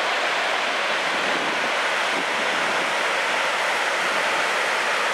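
Red River floodwater rushing through the wide-open gates of the St. Andrews Lock and Dam: a steady, even rush of turbulent water.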